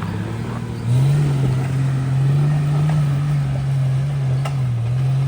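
An off-road vehicle's engine revs up about a second in and holds a steady pitch under load as it crawls over a rock obstacle.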